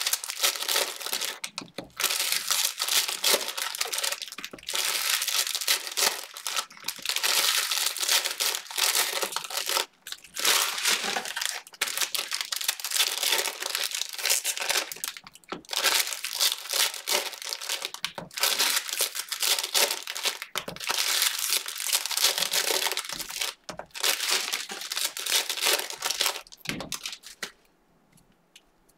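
Panini Mosaic football card pack wrappers crinkling and tearing as packs are ripped open one after another. The sound comes in dense bursts with short pauses and dies away shortly before the end.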